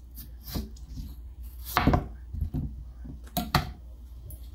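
Chef's knife cutting watermelon rind against a plastic cutting board: a series of separate chopping knocks, the loudest pair about two seconds in and another pair near the end.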